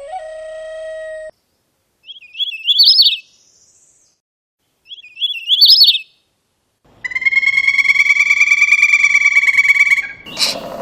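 Bird calls: two short, high chirped phrases about three seconds apart, then a steady nasal call lasting about three seconds, followed by sharp clicks at the very end.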